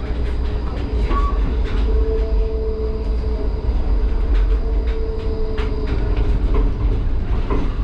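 HermeLijn tram running on its rails, heard from inside the rear cab: a steady low rumble with scattered clicks. A steady tone sounds for a few seconds in the middle.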